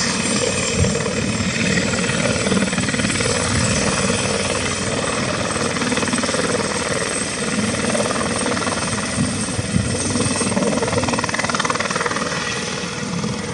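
Helicopter running steadily, its rotor and engine at an even level throughout.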